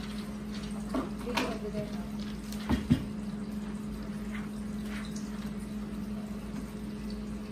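A few light knocks and clicks as a speaker and its power cable are handled and plugged in, the sharpest about three seconds in, over a steady low hum.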